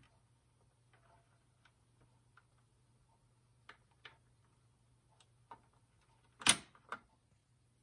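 BSR C141R record changer running its auto-return and shutoff cycle: faint mechanical clicks as the tonearm swings back to its rest, then a louder clunk about six and a half seconds in, followed by a smaller one.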